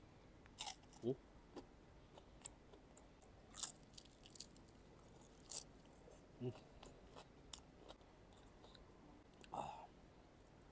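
Close chewing and crunching of crispy pata (deep-fried pork knuckle) in the mouth: quiet, irregular crackles and wet smacks, with a few short hummed "mm" sounds.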